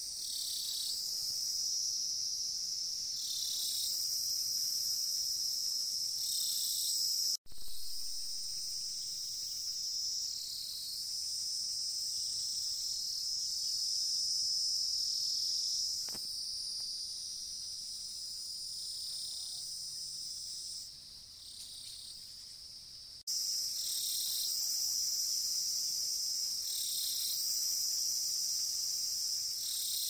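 Steady high-pitched chirring of insects in the grass, swelling now and then, with a brief break about seven seconds in.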